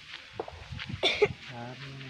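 A man coughs sharply once about a second in, followed by a short held hum in his voice near the end.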